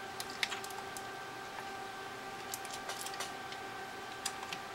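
Scattered small clicks and taps from handling a 3rd-generation iPod and small tools while taking it apart to change its battery, over a faint steady hum.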